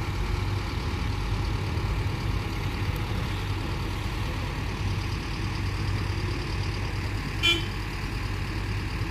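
Heavy vehicle engine running steadily, with one short horn toot about seven and a half seconds in.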